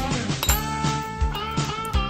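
Background music: guitar-led rock with a steady drum beat.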